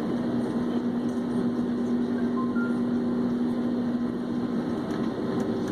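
Aircraft engine noise heard inside a passenger cabin: a steady drone with a constant low hum.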